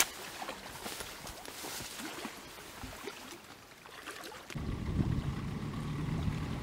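Faint rustling of leaves and twigs with light footsteps for the first four seconds or so, then an abrupt switch to the steady low drone of an outboard motor driving an inflatable boat, with wind on the microphone and water rushing along the hull.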